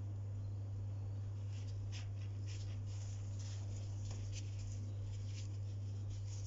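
Faint crinkling and rustling of disposable plastic gloves and spring roll pastry being rolled and handled, as many short scratchy crackles, over a steady low hum.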